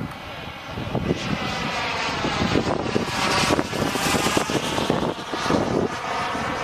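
Small gas-turbine engine of a radio-controlled sport jet, a steady jet rush that grows louder to its peak a little past the middle, with wind buffeting the microphone.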